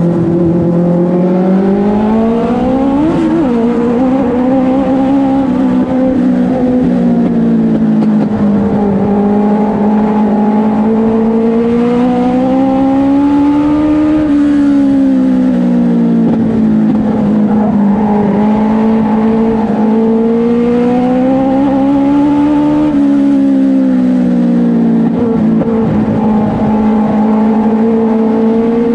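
Race car engine heard from inside the cockpit, running hard the whole time, its pitch climbing and falling in long sweeps every several seconds as the car speeds up and slows through the laps.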